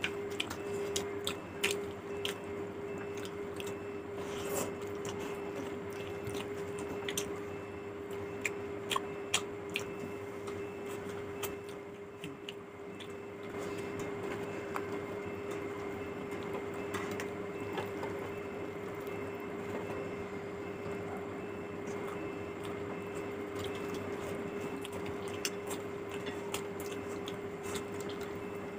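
Eating fish curry and rice by hand: wet squishing and small clicks as fingers mix the rice and curry and tear at a fried fish, with chewing. A steady hum runs underneath.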